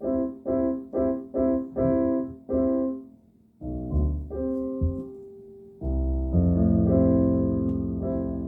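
Piano-sounding keyboard playing short repeated chords, about two a second, then after a brief pause sustained chords over a deep bass from about six seconds in.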